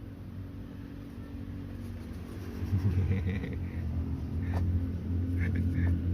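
Low rumble of a motor vehicle's engine, getting louder from about halfway through, with a sharp click and a few short high squeaks.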